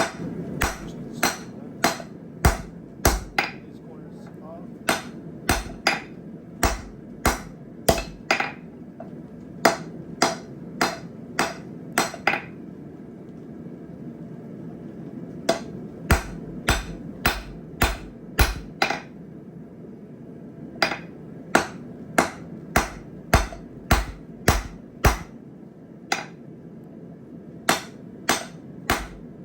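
Blacksmith's hammer striking a hot jackhammer-chisel shank on the anvil, tapering it to fit the hardy hole. The blows come about two a second, in runs of five to eight with short pauses between.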